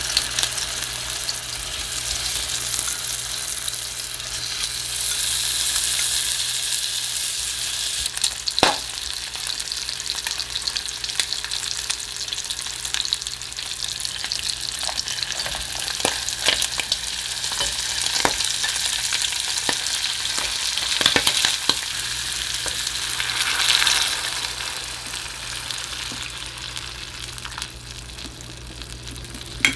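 Bacon slices frying in a nonstick saucepan: a steady sizzle with scattered sharp clicks of tongs against the pan. The sizzle dies down near the end.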